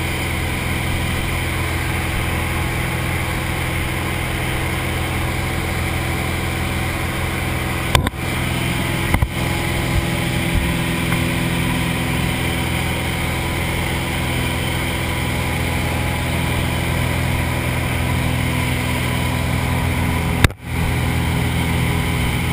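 Light aircraft's piston engine and propeller droning steadily, heard from inside the cabin of a skydiving jump plane in flight. The sound cuts out for a moment about eight seconds in, again a second later, and once near the end.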